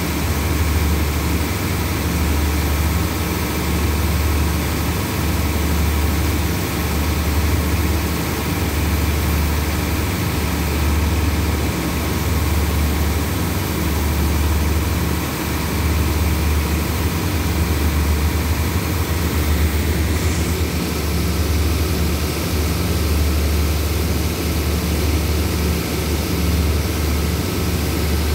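Diesel engine of a stopped passenger train idling: a steady low drone.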